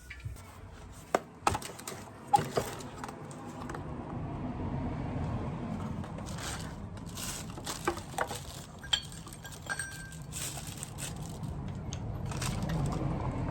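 Scattered sharp metallic clinks and scrapes, as of small metal parts or tools being handled, over a low rumble that swells and fades.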